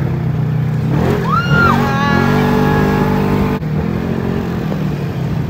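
Vehicle engine running steadily, with a brief rising-and-falling shout about a second in and a sudden break a little past halfway.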